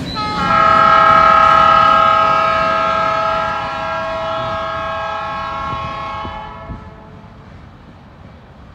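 Diesel locomotive air horn sounding one long, steady multi-note chord for about six and a half seconds, loudest at first, then stopping, over the low rumble of the freight train.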